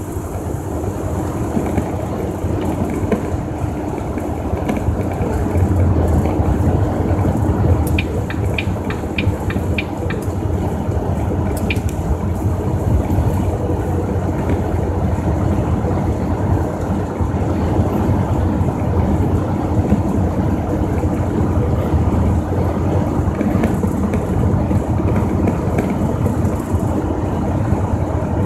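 Steady drone of a semi truck's engine and tyres heard from inside the cab at highway speed, with a short run of quick clicks about eight seconds in.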